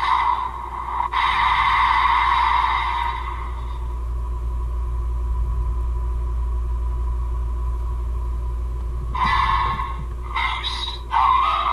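DX Desire Driver toy belt playing electronic sound effects through its small built-in speaker: a bright synth sound for the first few seconds, then a steady held tone, then choppy bursts of new sound near the end as its pink handle is worked. A steady low hum runs underneath.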